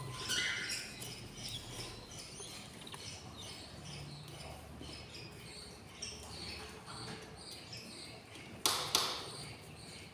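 Budgerigar chicks in the nest box making many short, high squeaky chirps, with a sharp knock about three-quarters of the way through.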